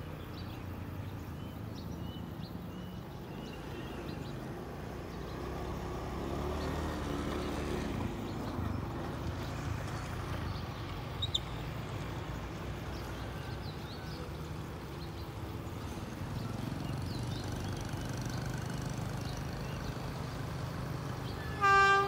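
Low, steady rumble of an approaching diesel-electric locomotive, GEK 4004, growing slightly after about 16 seconds, then a short, loud blast of its horn near the end.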